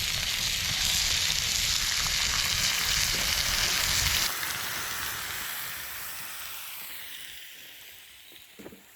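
Meat sizzling in a pan over a campfire, a steady hiss that drops about four seconds in and then fades away toward the end.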